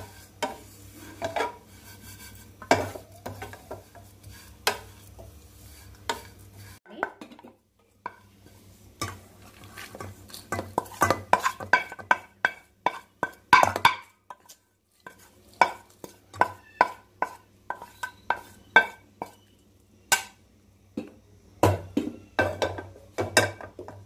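A wooden spatula scraping and tapping against a steel pan as grated dried coconut is stirred while it dry-roasts, in a long run of irregular sharp scrapes. Later the roasted coconut is scraped out of the pan into a steel bowl.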